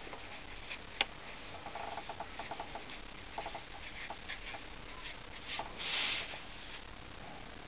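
A pen nib scratching and ticking on paper as a date and characters are written, in a run of small irregular strokes with a sharper click about a second in. A brief soft rustle about six seconds in.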